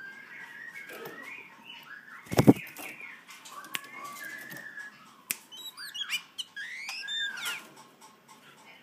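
Oriental magpie-robin calling: a string of short whistled notes that slide up and down, then quicker, sharper chirps in the second half. One loud thump about two and a half seconds in.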